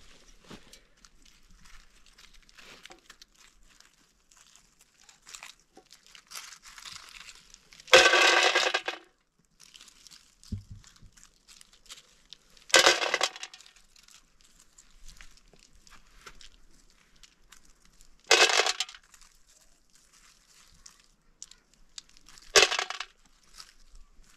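Small hard pieces dropped by hand into a stainless-steel pot, four clanks that ring briefly, about four to five seconds apart; the first, about eight seconds in, is the longest and loudest. Between them, faint rustling of hands among dry leaves and stones.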